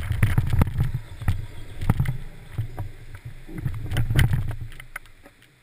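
Kayak hull sliding and bumping over grass: a rough low rumble broken by sharp knocks, carried through the hull to the stern-mounted camera. It dies away near the end as the kayak comes to rest.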